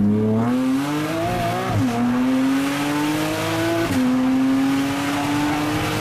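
Porsche Cayman S flat-six with an Armytrix exhaust, headers and sport catalytic converters, accelerating hard, heard from inside the cabin. The engine note rises, drops at an upshift about two seconds in, rises again and drops at a second upshift about two seconds later.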